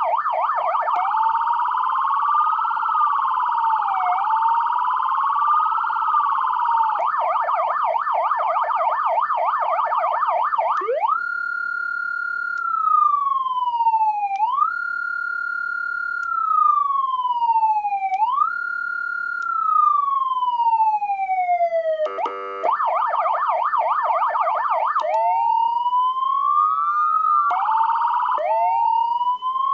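YL-216T20 200W+200W dual-output electronic siren cycling through its tones. It starts with a fast warble that for a while has a slower wail layered over it. Next comes a tone that falls slowly and jumps back up every three to four seconds, then a short buzzing blast about two-thirds of the way through, then fast warbles mixed with rising sweeps near the end.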